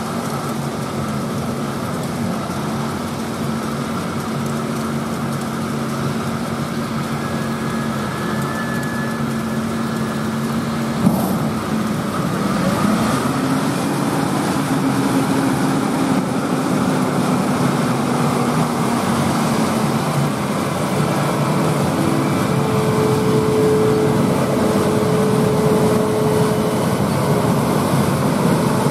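John Deere 8R tractor diesel engines and the KMC peanut pickers they pull, running steadily in the field, getting a little louder after the middle as a rig passes close. A single sharp click comes just before halfway.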